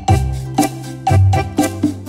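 Background music with a bass line and a steady beat, about four strokes a second.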